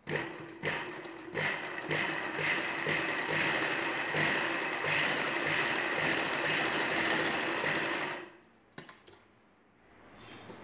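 Ralson sewing machine stitching through fabric. It starts with a couple of short runs, then runs steadily for about eight seconds before stopping abruptly, with a single click shortly after.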